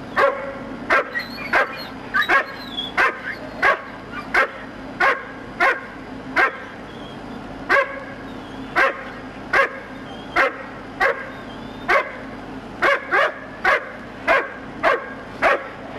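A dog barking over and over, about one to two short barks a second, without a pause.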